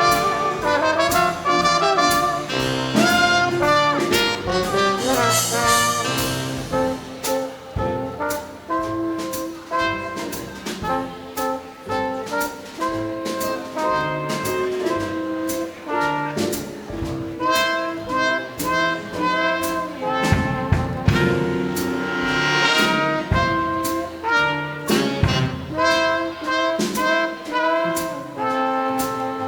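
Big band playing swing jazz, with brass and saxophones over a drum kit keeping time with frequent sharp hits.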